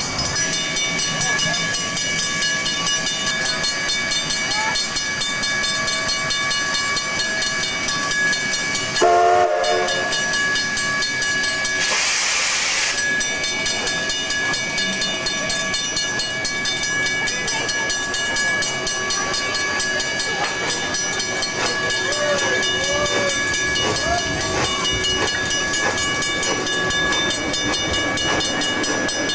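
Steam locomotive standing with a steady hum, sounding a short whistle note about nine seconds in, followed a few seconds later by a loud burst of steam hiss lasting about a second.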